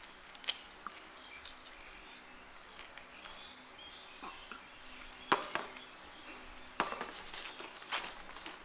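A few sharp clicks and knocks of snake fruit being handled in a plastic basket, the loudest about five seconds in, over faint bird chirps.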